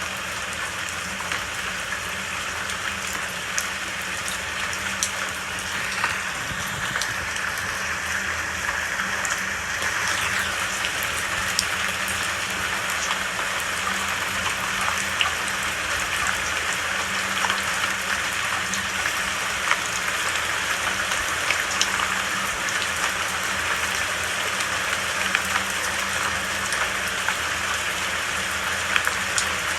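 Steady rain falling, an even hiss dotted with many sharp individual drop impacts.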